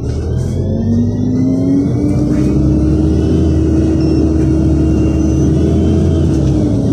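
LiAZ 5292.67 city bus with its YaMZ-53624 natural-gas engine and ZF automatic gearbox accelerating away from a stop, heard inside the cabin. The engine note rises over the first couple of seconds and holds steady, then dips near the end as the gearbox shifts up.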